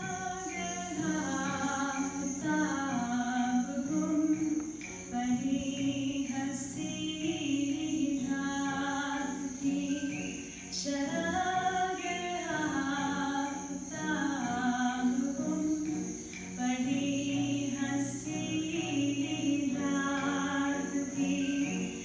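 A recorded song: a woman singing a slow, waltz-like melody in phrases of a few seconds each, with little or no accompaniment.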